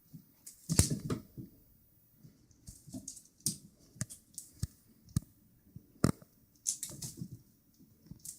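A kitten and a dog at play: irregular clicks, taps and scuffles of paws and claws with brief bumps, the loudest knocks about a second in and again near six seconds.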